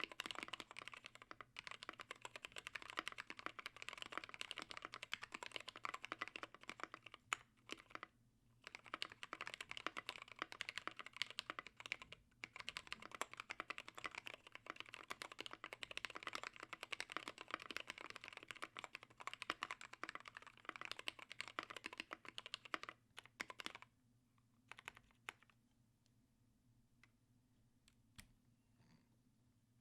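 Typing on a mechanical keyboard with lubed and filmed vintage Cherry MX Black linear switches, an aluminium plate and KAT Alpha keycaps: a fast, steady run of keystrokes with brief pauses. About six seconds before the end the typing stops, leaving only a few single keypresses.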